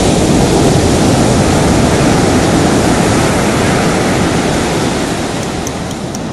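Heavy ocean surf, a steady roar of breaking waves and white water that fades slightly toward the end. Faint, evenly spaced high ticks come in near the end.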